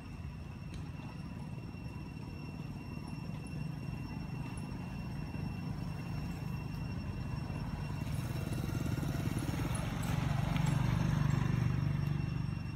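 A motor vehicle engine running nearby: a steady low rumble that grows louder from about eight seconds in, with a faint steady high tone above it.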